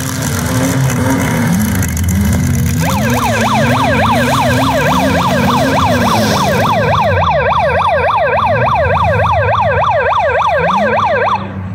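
Demolition derby cars' engines revving unevenly, and from about three seconds in a fast yelp siren sweeps up and down about four times a second before cutting off near the end. The siren signals a stop in the derby so a torn-off tire can be cleared from the track.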